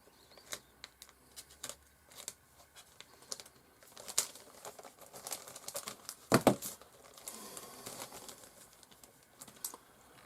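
Plastic bag crinkling and crackling as the kit's clear plastic parts are handled, in irregular sharp crackles with the loudest about six and a half seconds in.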